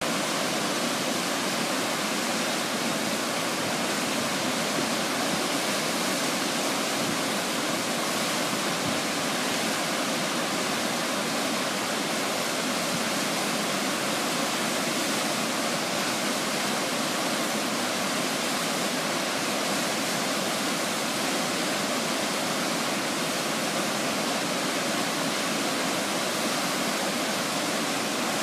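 Shell Falls, a mountain waterfall on Shell Creek in heavy flow: a steady, unbroken rush of white water pouring through a rock gorge.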